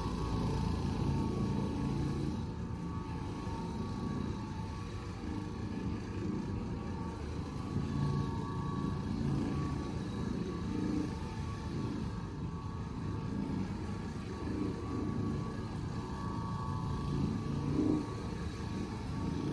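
Electric carpet-cleaning floor machine running steadily on carpet, a continuous motor hum with a faint steady whine.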